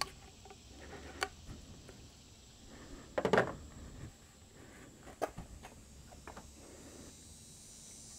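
Handling noise from a removed rubber upper radiator hose being moved and flexed by hand: scattered small clicks and knocks, with one louder scrape about three seconds in.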